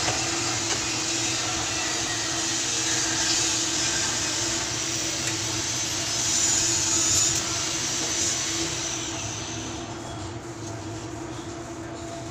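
Steady machine drone with a constant low hum, dropping to a quieter level a few seconds before the end.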